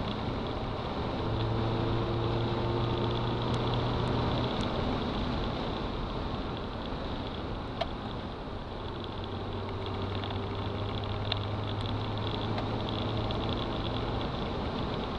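Honda Civic's D15B7 1.5-litre four-cylinder engine, fitted with an AOMA cone-filter intake, running at a steady speed while driving, heard from inside the cabin over road noise. Its steady hum fades briefly about halfway through, then comes back, with a couple of short clicks.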